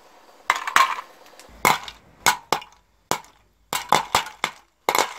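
Popcorn kernels popping in a homemade popper cut from an aluminium drink can: a dozen or so sharp pops at irregular intervals.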